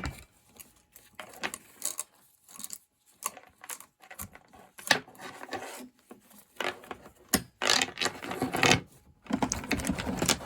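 A screwdriver working screws out of the Poulan Pro chainsaw's housing: irregular clicks and short scraping rasps, with two longer grinding runs near the end.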